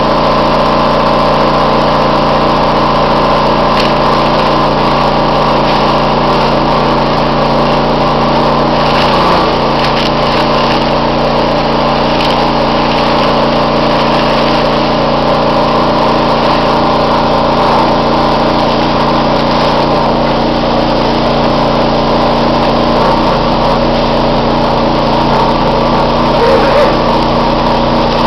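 The sawdust-handling machinery runs in a steady, loud hum with several constant tones, while sawdust discharges through a cloth sleeve into a plastic-lined bin.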